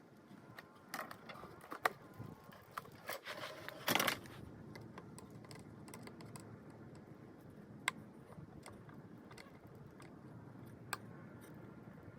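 Small hard objects being handled: a cluster of sharp clicks and a brief rattle, then a few single clicks spaced well apart.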